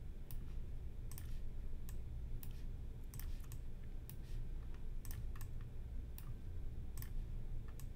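Computer mouse clicking: about fifteen sharp clicks at irregular spacing, often in close pairs, over a low steady hum.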